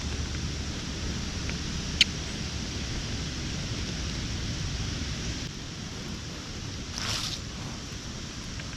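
Strong gusty wind blowing across the microphone in a steady rush. There is a single sharp click about two seconds in, and a brief rustle near the end.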